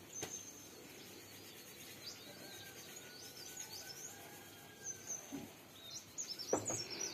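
Small birds chirping and calling against a faint, even outdoor hiss, with a few soft knocks near the end.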